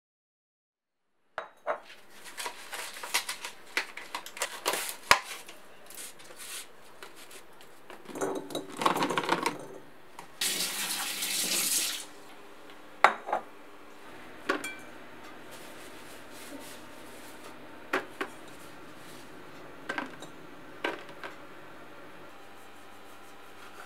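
Cherry tomatoes being washed at a kitchen sink. A rattling clatter of tomatoes and dishes comes first, then the faucet runs for about a second and a half near the middle, and light knocks and clinks of containers on the counter follow now and then. The sounds begin after about a second of silence.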